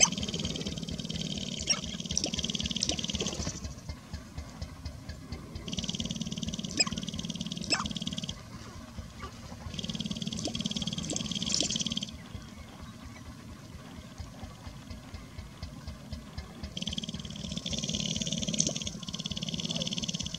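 Male sharp-tailed grouse dancing on a lek: four bouts, each two to four seconds long, of fast rattling from the birds' rapidly stamping feet and shaking tail feathers, with short pauses between.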